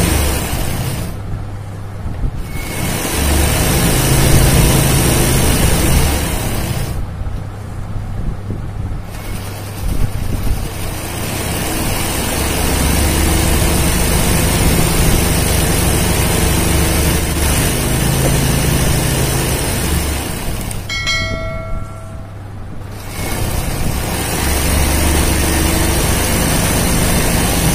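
Electric sewing machine set up for free-motion embroidery, stitching fast in long runs and stopping briefly three times.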